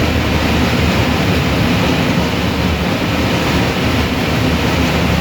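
Industrial garment sewing machinery running steadily: a continuous mechanical din with a low hum underneath.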